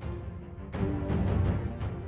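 Background music with a steady beat between narration lines.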